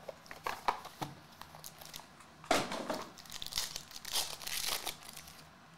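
Trading card pack wrapper crinkling and tearing as a pack of basketball cards is pulled from its box and opened by hand, in irregular crackles, loudest about two and a half seconds in.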